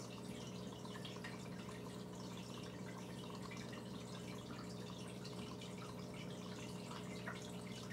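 Water bubbling and trickling in a fish tank: a continuous patter of small pops and drips over a steady low hum.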